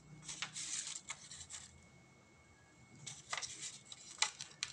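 Soft rustling and brushing handling noises in a few short bursts as hands turn a smartphone over and set it down on a hard surface.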